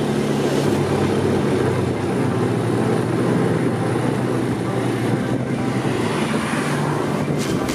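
Bashan 250 quad bike's engine running steadily under way, with wind and tyre noise.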